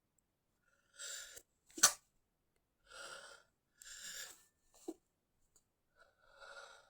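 A person's stifled sneeze: a breathy intake about a second in, then one short sharp sneeze burst just before two seconds, the loudest sound. Further breathy breaths follow, with a brief sharp click near five seconds.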